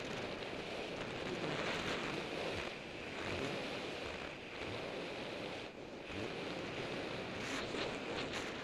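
Wind rushing over the microphone of a bike-mounted action camera on a road bike at racing speed, about 29 mph, a steady rushing noise with a few light ticks near the end.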